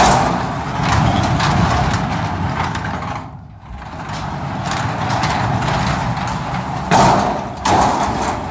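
Garage door opener running a steel flush-panel sectional garage door up and back down, its rollers rumbling along the tracks, with a short pause a little over three seconds in. It is the test run of the door after two new sections were fitted.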